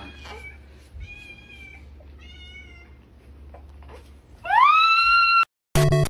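Domestic cat meowing three times in short calls, then a louder, longer meow that rises in pitch and holds. Music with sharp repeated hits starts near the end.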